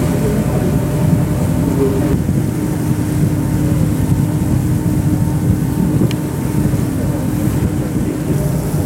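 Ferry's engines running under way, a steady low drone with a constant hum, heard on board.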